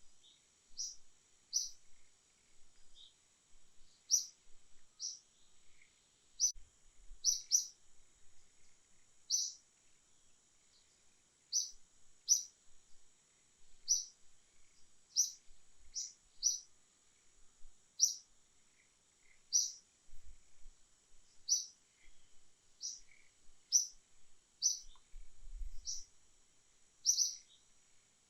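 A small bird chirping repeatedly, short high chirps about once a second, over a faint steady high-pitched background hiss. A few faint low thumps come in about a third of the way in and again near the end.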